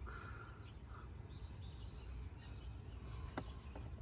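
Quiet outdoor background: a low steady rumble with faint bird chirps, and a single sharp click about three and a half seconds in.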